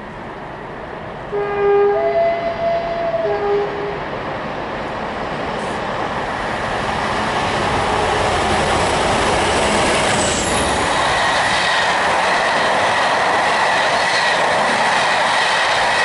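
Class 47 diesel locomotive sounding its two-tone horn about a second in, low note, high note, then low again. It then runs past with its train of coaches, the noise of engine, wheels and rails growing to a steady loud rush with a thin high whine over it.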